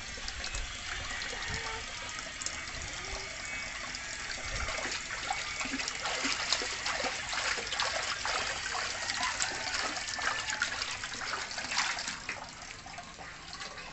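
Water trickling from a tap into a large plastic tub of water, with a small child splashing in it.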